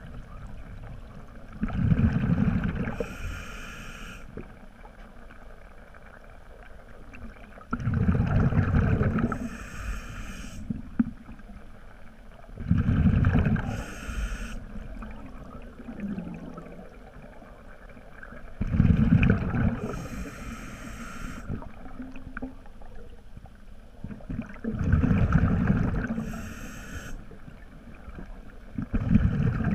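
A scuba diver breathing through a regulator underwater: a rushing burst of exhaled bubbles about every five to six seconds, each followed by a shorter, high-pitched hiss.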